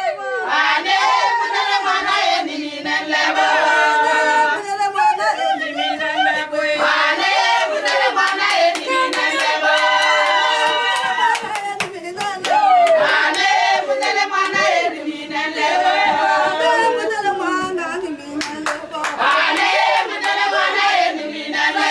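A group of women singing together, with rhythmic hand clapping throughout.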